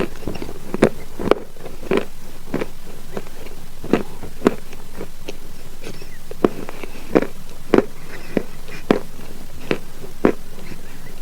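Maria chalk being bitten and chewed close to the microphone: a string of sharp, separate crunches, roughly one every half second to second, over a steady hiss.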